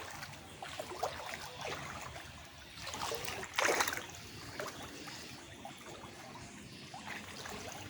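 Floodwater running and trickling, with a brief louder burst of noise about three and a half seconds in.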